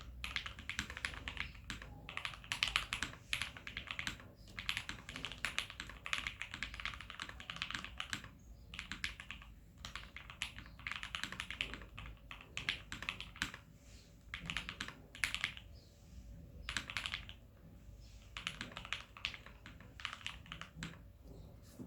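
Typing on a gasket-mount custom mechanical keyboard with lubed Gateron Yellow linear switches, a 1.5 mm acrylic plate and PBT keycaps: quick runs of keystrokes in bursts with short pauses between them.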